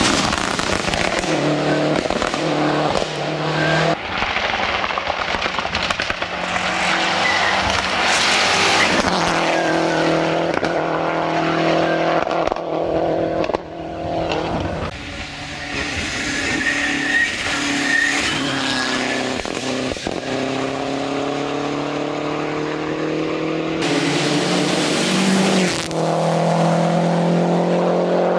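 Lancia Delta Integrale rally car's turbocharged four-cylinder engine being driven hard. Its note climbs and drops repeatedly as it shifts through the gears.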